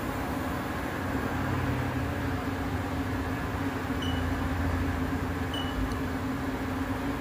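Haas TM3P CNC toolroom mill running with its doors shut: a steady machine hum and the hiss of coolant spraying inside the enclosure. A low rumble swells and fades twice, and two short high chirps sound about four and five and a half seconds in.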